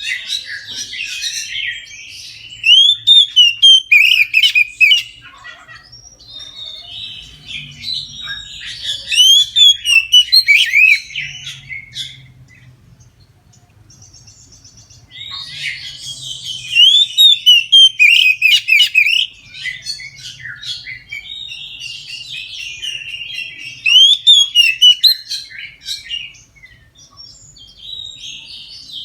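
Oriental magpie-robin singing loud, full song: bouts of a few seconds of varied sweeping whistles and rapid notes, separated by short pauses.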